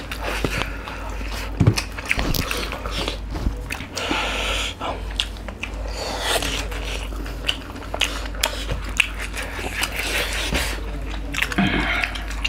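Close-miked eating: chewing and biting into curried chicken, with fingers working rice and curry on a banana leaf, making many small wet clicks and smacks.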